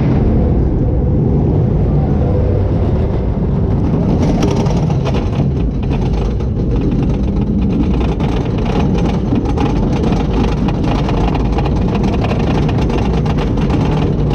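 Wickerman wooden roller coaster train running along its wooden track: a steady loud rumble with a dense, irregular rattle that sets in about four seconds in.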